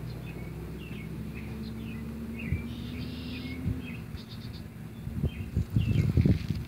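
Small birds chirping now and then in the background over a steady low hum, with two faint clicks midway. From about five seconds in, loud irregular low rumbling takes over.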